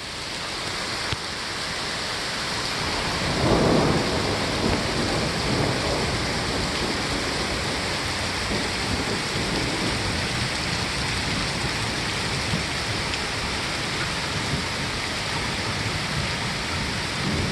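Heavy rain falling steadily, an even hiss, with a louder low rumble from about three to six seconds in.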